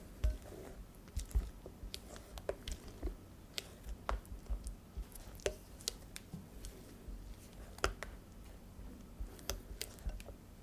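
Madeleine batter being stirred and folded in a bowl: wet squishing of the thick batter with irregular light clicks and taps of the utensil against the bowl.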